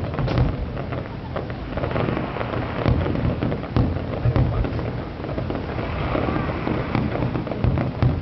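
Fireworks display going off in quick succession: deep booms and sharp cracks one after another, with crackling between them.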